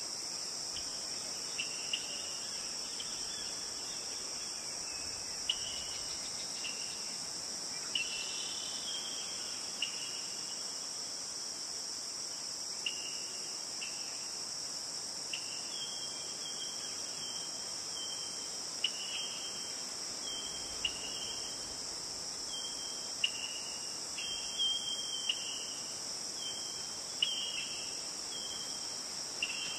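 A sponge dabbing acrylic paint onto a canvas textured with structure paste: short scratchy dabs, more frequent in the second half, over a steady high-pitched hiss.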